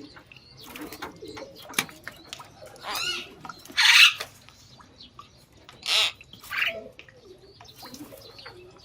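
Scattered short animal calls and chirps: a few loud cries about four and six seconds in, fainter calls between them, and quiet gaps.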